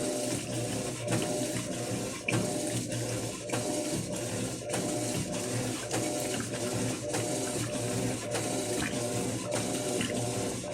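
Electrolux LF10 top-loading washing machine agitating a load of blankets in water: a steady motor hum with water sloshing and repeated light mechanical clicks.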